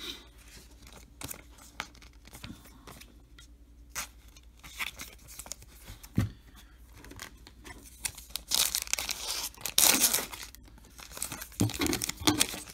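Foil wrapper of a trading card pack torn open: a long rip about eight and a half seconds in, then more crinkling near the end. Before it, light clicks and taps of cards being handled and set down.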